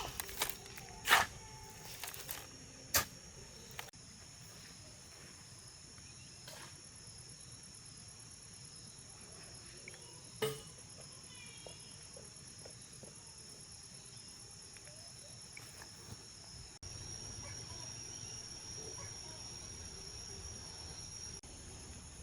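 Steady high-pitched drone of insects such as crickets or cicadas. It is broken by a few sharp knocks in the first few seconds, the loudest about a second in, and another knock about ten seconds in. A bird chirps briefly a few times.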